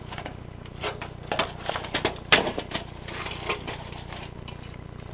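Handling noise: a run of irregular clicks and taps as the camera is moved and brought away from the window, over a low steady hum.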